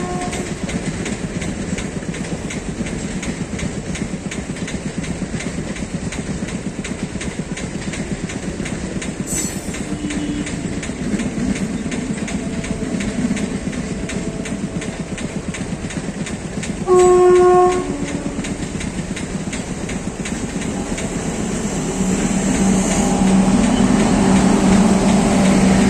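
Passenger coaches rolling past with a steady rumble and the clickety-clack of wheels over rail joints, and one short train horn blast about two-thirds through. Near the end the sound grows louder as a WAG-9 electric freight locomotive hauling open wagons passes close on the near track.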